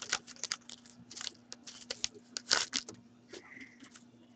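Foil wrapper of a hockey card pack being torn open and crinkled by hand: a run of quick, sharp crackles that thins out after about three seconds.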